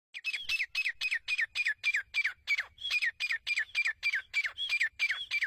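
Female teetar (francolin) calling: a fast, steady run of short, downward-sliding notes, about three or four a second.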